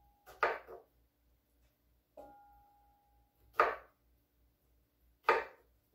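Chef's knife cutting through pineapple chunks onto a wooden cutting board: three sharp knocks of the blade hitting the board, spaced a second or two apart.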